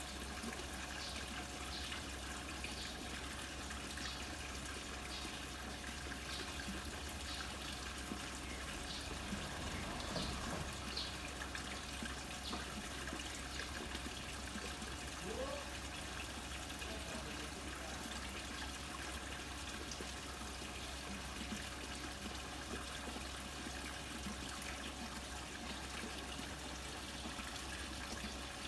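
Steady trickle of water running into a garden koi pond.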